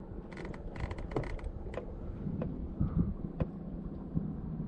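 Light mechanical clicking and rattling from a spinning reel being handled: a cluster of quick clicks in the first second and a half, then a few single ticks, over a low steady hum.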